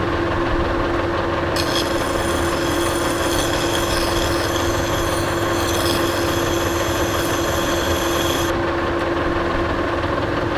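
Monarch Model K engine lathe running with a steady hum and whine, cutting steel as the outside diameter of a large bar is turned down. The cutting adds a high hiss from about a second and a half in, which stops about two seconds before the end while the lathe keeps running.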